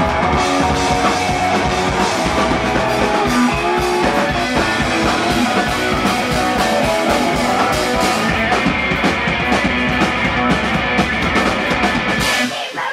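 Punk rock band playing live, with electric guitars and a drum kit going hard, cutting off abruptly near the end as the song finishes.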